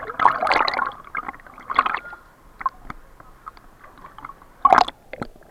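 Water sloshing, gurgling and splashing around a snorkeler's camera, in irregular bursts with scattered clicks and a sharp splash near the end.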